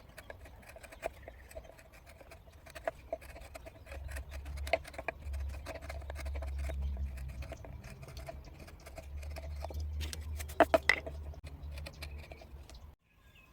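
Wood-carving chisel working wood: scratchy scraping with many small clicks and taps, and a quick run of sharper clicks about ten and a half seconds in. A low rumble sits underneath from about four seconds in until just before the end.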